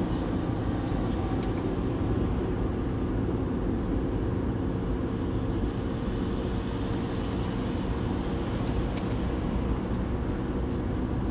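Steady road and engine noise inside a car's cabin at motorway speed, a low rumble that holds even throughout.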